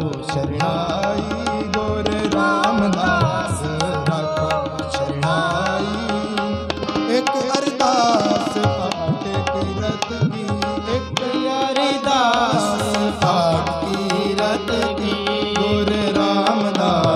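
Sikh kirtan: harmoniums and a tabla playing a steady accompaniment with quick tabla strokes throughout, and a man's voice singing a wavering melody over them.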